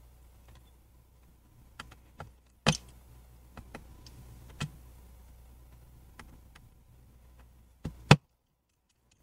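Scattered small clicks and taps of a precision screwdriver and gloved fingers on the metal parts of an opened MacBook Pro, as the tiny Wi-Fi antenna screws are worked loose. There are two louder knocks, one a little under three seconds in and one near the end, after which the sound cuts off suddenly.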